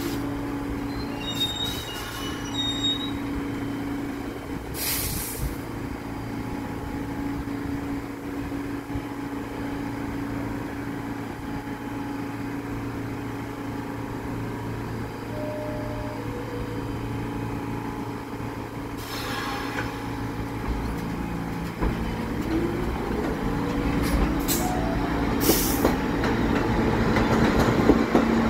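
R46 subway train standing at the platform, its equipment giving a steady hum, with several short hisses of air. About 22 seconds in, a rising whine sets in as the train starts to pull out, and the sound grows louder toward the end.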